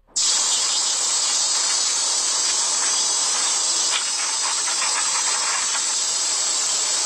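A chorus of cicadas giving a steady, shrill, sizzling drone, starting abruptly at the very beginning.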